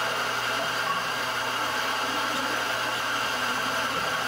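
Electric espresso grinder motor running steadily, grinding coffee beans for a shot of espresso.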